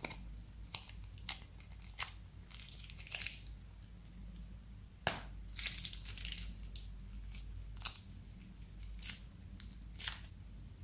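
Plastic zip-lock bag crinkling and crackling as it is squeezed and crumpled in the hands to empty its slime out, in irregular sharp crackles, the loudest about halfway through.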